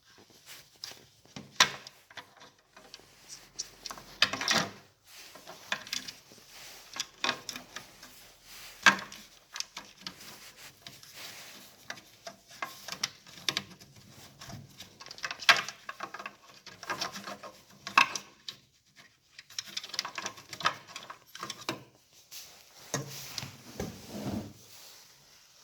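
Objects being handled by hand: irregular clicks, knocks and rubbing, with sharper knocks about 2, 9, 15 and 18 seconds in.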